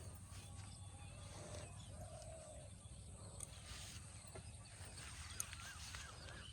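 Faint outdoor ambience with birds calling: a short call about two seconds in and a quick, repeated chirping near the end, over a steady low hum.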